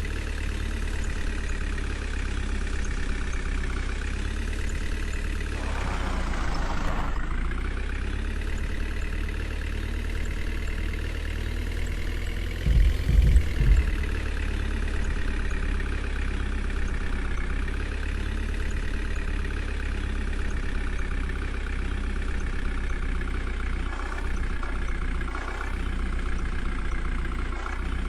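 Diesel engine of a JCB 3DX backhoe loader running steadily while it works. Its pitch drops about seven seconds in and climbs back over the next few seconds. A few low thumps come around thirteen seconds in.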